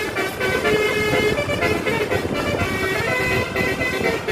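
Bus telolet horn, a multi-tone air horn sounding a quick run of held notes that jump from pitch to pitch like a short tune, over engine and road noise.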